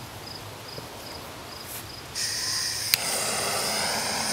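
A homemade jet-sound noisemaker starting up about halfway in, giving a steady hissing whine with several high tones. One sharp crack comes shortly after it starts. Faint, evenly spaced high beeps come before it.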